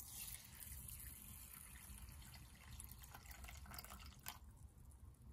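Water poured from a glass pitcher into a glass bowl of dry rice: a faint, splashing trickle that stops after about four seconds.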